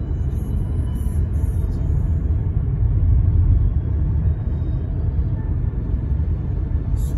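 Steady low rumble of a car on the move: road and engine noise heard from inside the car.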